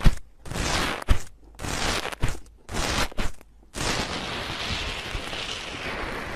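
Fingertips pushing into a crunchy foam block, crackling in a run of short bursts. About four seconds in the hand starts crushing it, and the crackling becomes continuous.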